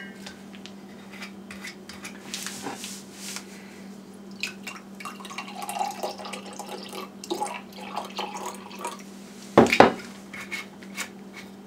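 Sorrel drink poured from a glass gallon jug into a stemless wine glass, glugging and splashing through the middle after a click as the cap comes off. A little before the end the heavy jug is set down on the counter with a loud knock.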